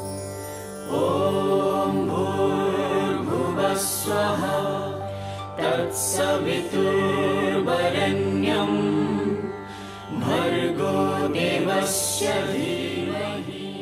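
Devotional background music: a voice chanting a mantra over a steady low drone. The chant comes in about a second in and dips briefly near ten seconds.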